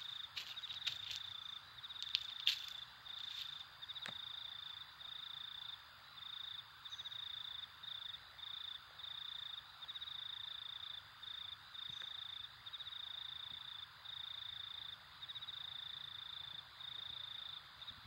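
Cricket chirping: a high, pulsing trill that repeats in runs with short gaps, part of a night-time insect ambience. A few sharp clicks or taps sound in the first three seconds.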